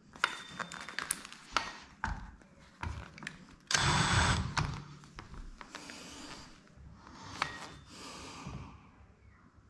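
Cordless drill with a hole saw against ceramic wall tile, cutting around a mixer body to gain clearance: sharp knocks and taps at first, then a burst of drilling about four seconds in, the loudest sound, followed by several seconds of quieter grinding.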